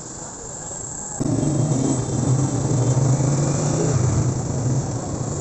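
Motor vehicle engine running with a steady low hum over road noise. It cuts in abruptly about a second in, after a second of quieter street background.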